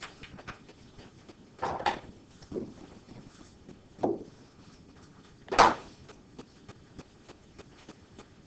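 Quiet classroom room tone with a few brief scrapes and rustles while students work, the loudest about five and a half seconds in.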